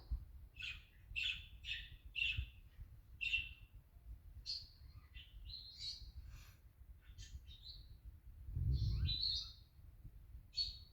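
Pet budgerigar chirping in a string of short, high chirps, several a second, then varied warbling calls. A low bump rumbles briefly near the end.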